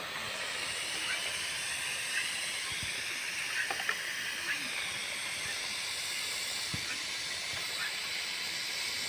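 Steam hissing steadily out of the top of a sealed clay pot (surahi) with chicken cooking inside, escaping like steam from a pressure cooker. A few faint clicks sound through the hiss.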